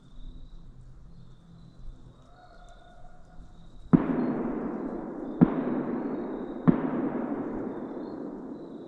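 Three gunshots, about a second and a half apart, each followed by a long rolling echo that dies away slowly. They are shots fired at a buck.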